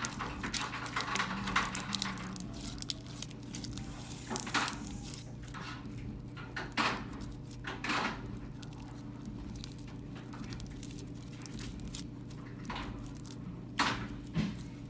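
Small orange creamsicle slime with fishbowl beads being squished and poked by hand, giving irregular wet crackles and clicks, a few louder ones standing out. A steady low hum runs underneath.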